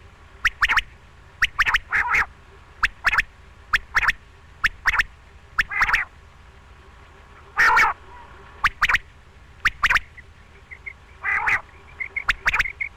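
Quail calling: groups of two or three short, sharp notes repeated about every second, with a few longer, harsher calls among them.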